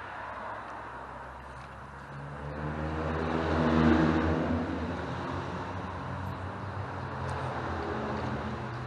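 Road traffic crossing the bridge overhead, heard from beneath the deck. A vehicle's rumble swells to its loudest about four seconds in, then eases into a steady drone.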